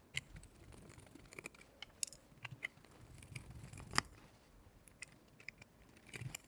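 Faint clicks and light scraping of a screwdriver turning small screws into a plastic bracket, with parts being handled. The sharpest click comes about four seconds in.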